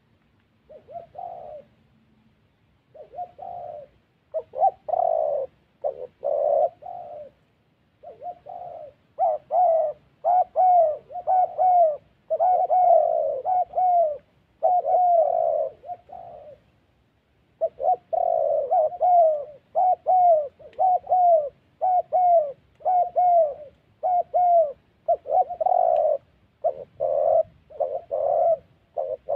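Spotted doves, a caged decoy and a wild bird facing it, cooing at each other in fast runs of short coos with a few brief pauses. This is the challenge calling of a territorial face-off.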